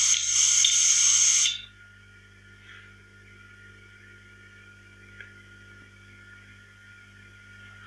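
Sound-effect playback: a loud hissing, crackling noise that cuts off suddenly about a second and a half in, leaving a faint electrical hum with a thin steady tone.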